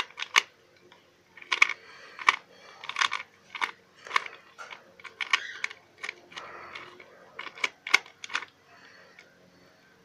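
A plastic 2x2 Rubik's cube being turned by hand: a quick, irregular run of sharp clicks and clacks as its layers snap round, thinning out near the end.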